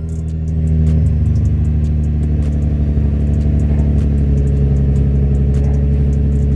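Infiniti G35's V6 idling steadily through a 3-inch Circuit Werks exhaust with test pipes, seconds after a cold start, a deep even exhaust note. It grows a little louder about a second in, then holds steady.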